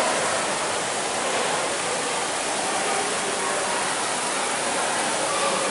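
Water pouring from spouts in a rock wall and splashing into a thermal pool, a steady rushing splash.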